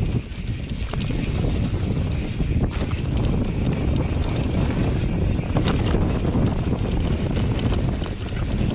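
Mountain bike riding fast over a dirt forest trail: a steady rumble of wind on the microphone and tyres on the ground, with scattered clicks and rattles from the bike.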